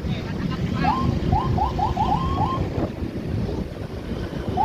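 Electronic police siren giving a quick run of about six short rising whoops starting about a second in, over steady heavy traffic noise; a longer rising siren note begins right at the end.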